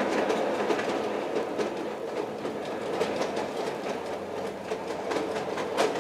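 Bassett-Lowke 'Enterprise' O gauge live-steam locomotive running under steam on a test stand, a steady hiss of steam and burner broken by fast, irregular clicking.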